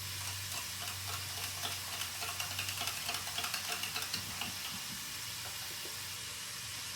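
Chicken sizzling in a frying pan, with a spoon scraping and tapping in a pint jar as mayonnaise is spooned in, the taps stopping after about four and a half seconds.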